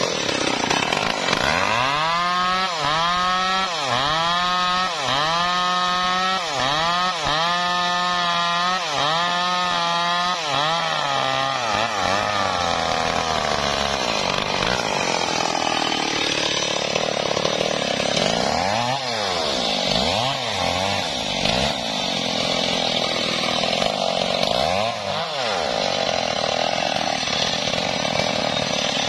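Two-stroke Stihl chainsaw sawing through a teak log. Its engine pitch sags and recovers about once a second as the chain bites. It then runs at steady high revs, and near the end dips sharply a few times under load.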